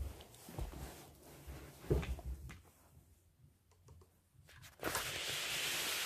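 Handling noise: light clicks and knocks of plastic game pieces set on a toy Buckaroo donkey, with a thump about two seconds in, then from about five seconds in a steady rubbing hiss as the recording device is moved about.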